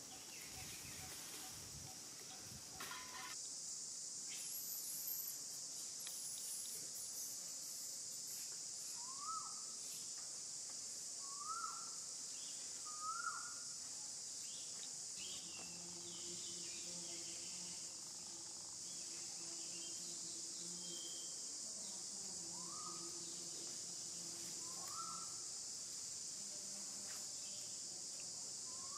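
Outdoor ambience dominated by a steady, high-pitched insect chorus, with a handful of short rising calls from an animal a couple of seconds apart. A low steady hum joins in the second half.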